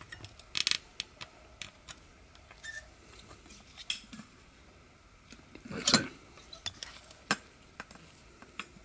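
Scattered light clicks and clinks of small metal and plastic parts as a motorcycle's HS1 headlight bulb is freed from its retaining prongs and taken out of the headlight socket. The loudest click comes about six seconds in.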